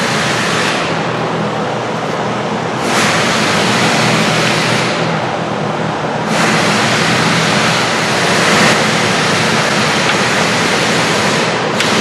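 Loud steady rushing noise with a low hum underneath, like a motor or fan running. The hiss brightens and fades back every few seconds.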